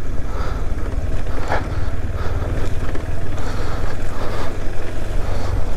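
Motorcycle engine running steadily as the bike is ridden along a rough off-road trail, with a low steady drone and wind noise on the microphone.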